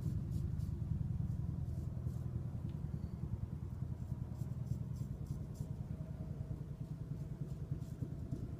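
Helicopter passing low overhead: a steady low throb of rotor beats that slowly fades.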